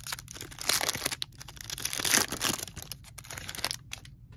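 Foil wrapper of a baseball card pack being torn open and crinkled, a dense crackling rustle that stops near the end.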